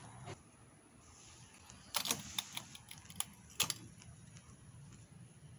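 Several sharp clicks and light rattles over faint room tone, bunched about two seconds in and again around three and a half seconds.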